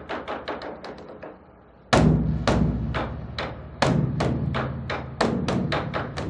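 Large Korean Buddhist temple drum (beopgo) beaten with two sticks: quick strokes several a second on the drum and its wooden frame, falling away briefly, then a sudden heavy boom on the drumhead about two seconds in with a deep ringing rumble, and further heavy strokes near four and five seconds.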